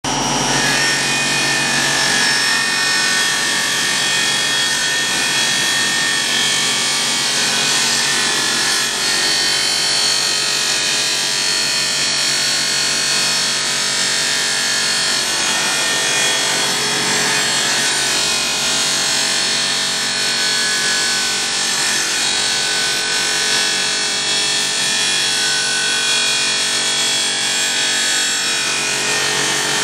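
Power sanding tool (manuTeC-3) running steadily with an abrasive against an aluminium alloy rim, grinding down curb damage. It starts abruptly and then holds an even, unbroken noise with a steady motor whine.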